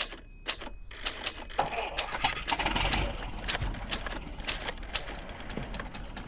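A run of quick mechanical clicks and rattles, with a denser rush of noise from about one and a half to three and a half seconds in.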